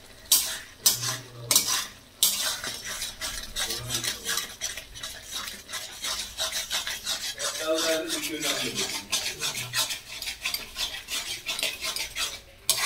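A metal spatula stirring and scraping onion masala around a black iron kadai. It starts as a few separate strokes, then becomes quick, continuous scraping against the pan.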